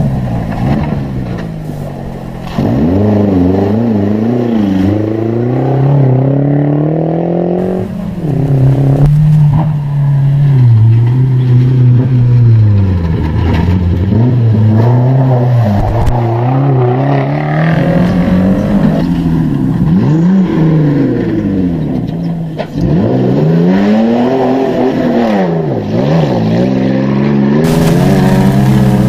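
Off-road 4x4 engine revving hard over and over, its pitch climbing and falling again and again.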